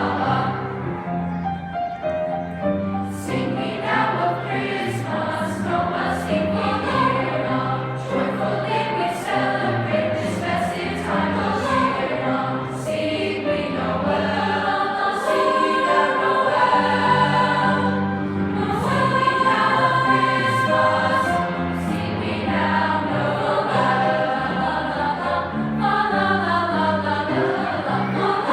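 Junior high show choir singing a Christmas song, many young voices together in harmony.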